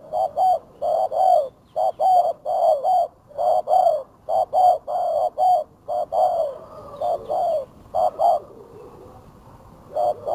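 Spotted doves cooing: a quick run of short coos, about two a second, that falls quiet about eight seconds in and starts again near the end.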